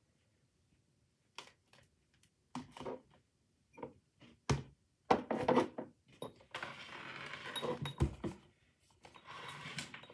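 Close handling noise from someone moving things on a desk: a string of short knocks and clicks, then a stretch of rustling and scraping with a sharp knock about eight seconds in.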